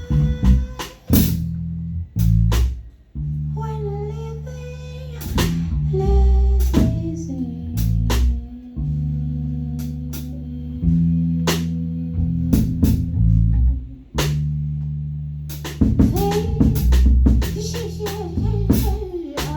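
Live rock band playing an instrumental passage without vocals. Drum-kit hits and fills run over sustained bass notes and a melodic guitar line, with a busier run of drum hits near the end.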